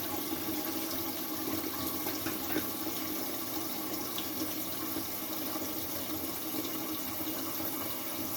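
Steady rush of running water that keeps going without a break.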